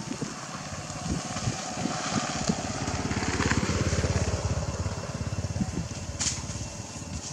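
A motor vehicle engine passes, swelling to its loudest about four seconds in and then fading, with a few scattered knocks in the first two seconds.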